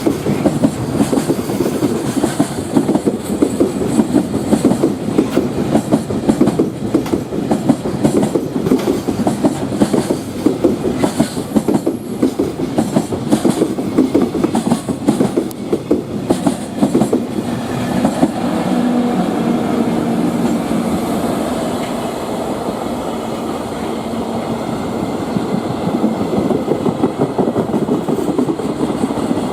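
Freight train of container flatcars rolling past, its wheels clattering rapidly over rail joints. About two-thirds of the way through the clatter eases into a steadier rumble with a faint held tone.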